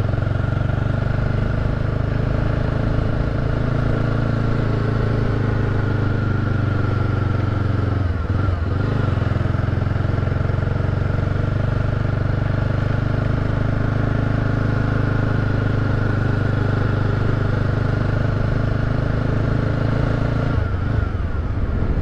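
Motorcycle engine running steadily under way, heard from the rider's seat. Its note drops briefly about eight seconds in and changes again near the end.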